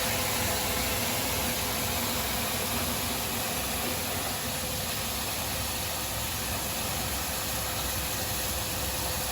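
Corn grits milling machine running steadily: a constant machine noise with a hiss and a steady hum.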